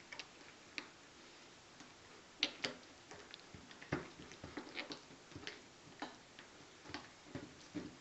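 Faint, irregular sticky clicks and pats of hands pressing and flattening an oil-soaked dough disk on a countertop, coming more often from about two and a half seconds in.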